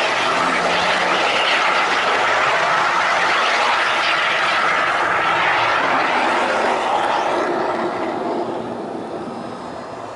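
HO-scale model train running on its track, heard from a camera riding on the train: the steady running noise of wheels on rails and the motor, which grows quieter over the last few seconds.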